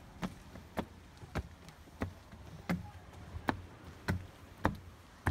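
Footsteps on a wooden boardwalk, a steady knock of each step landing about every two-thirds of a second.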